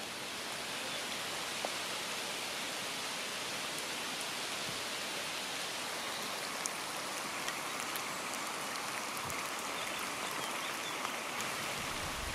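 Steady rain falling on a lake's surface, an even hiss with the odd single drop ticking.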